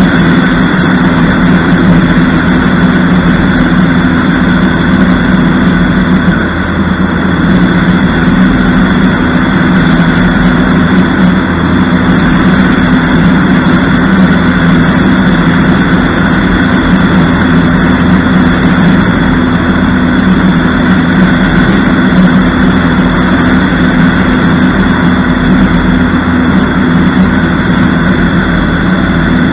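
Cessna 152's 150 hp Lycoming O-320 engine and propeller running steadily at climb power, heard from under the wing.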